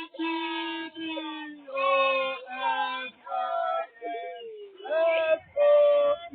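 A child's voice singing in long, drawn-out notes, chanting through the alphabet.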